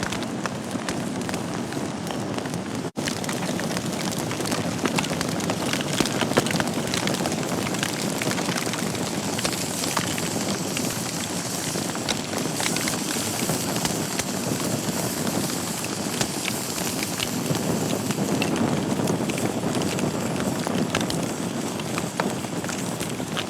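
Wood fire burning in a fireplace, a steady hiss and rush of flames with frequent irregular sharp crackles and pops. The sound cuts out for a split second about three seconds in.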